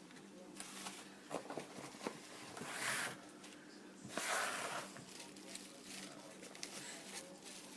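Packaging being handled and unwrapped by hand: rustling and tearing, with small clicks and taps. Two louder rustles come about 3 s and 4.5 s in, over a faint steady hum.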